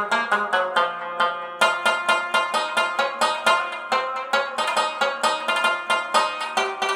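Background music: a fast, even run of plucked string notes.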